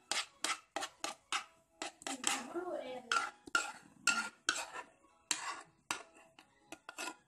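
A utensil scraping and knocking against a saucepan as melted chocolate is scraped out into a glass bowl: a run of short clinks and scrapes, about two a second.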